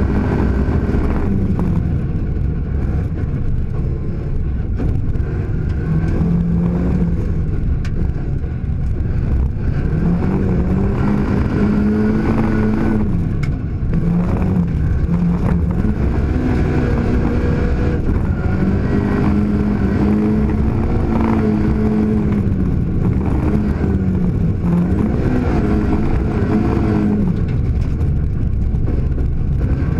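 Rally car engine heard from inside the caged cabin, revving hard and repeatedly climbing in pitch then dropping away as the car accelerates and lifts along a gravel road. A steady low rumble of tyres and gravel runs underneath.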